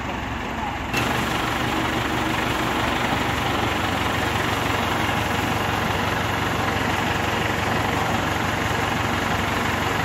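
Crane's engine running steadily in a constant mechanical drone; about a second in it steps up abruptly, louder and brighter, and then holds steady.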